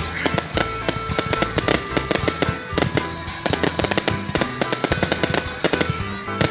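Fireworks display: dense, rapid bangs and crackling, several a second, over music with held tones and a steady bass.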